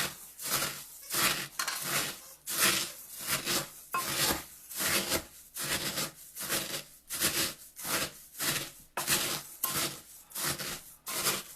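Cornflakes being crushed in a bowl with a Pampered Chef Mix 'N Chop: even, rhythmic crunching strokes, a little under two a second.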